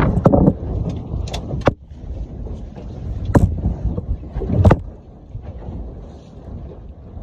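Steady rushing of wind and water aboard a small open fishing boat at sea, broken by a handful of sharp knocks, the loudest about three and a half and four and a half seconds in.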